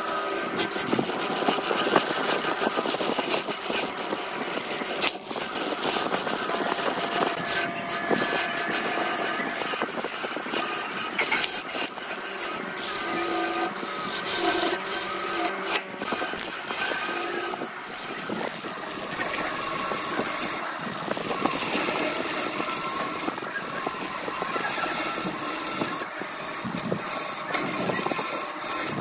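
A gouge cutting into a spinning glued-up blank of stacked wood discs on a BURT wood lathe: a steady scraping hiss of the tool on the wood, with a sharp tick now and then.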